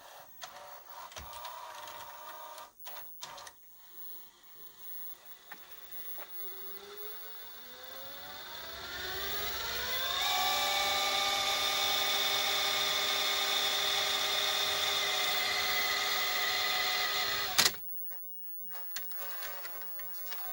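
A motor-like whine climbs in pitch over about four seconds, holds a steady pitch for about seven seconds, then stops abruptly.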